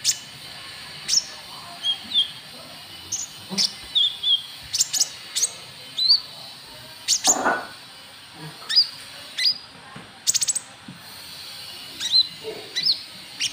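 Konin trotol bird calling: short, sharp, high chirps and brief slurred notes repeated at irregular intervals, with a quick rattle of clicks about ten seconds in.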